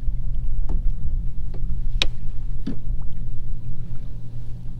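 A boat's motor running steadily with a low hum, under a few short, sharp knocks, the loudest about two seconds in.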